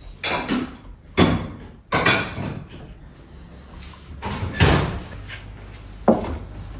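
Kitchen doors or cupboards being opened and shut: about five sharp knocks and bangs, a second or two apart.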